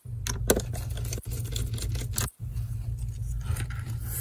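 Light clicks and taps of a small Phillips screwdriver and gloved hands against the metal frame of a laptop LCD panel while its mounting screws are taken out, over a steady low hum. The sound cuts out briefly a little past two seconds in.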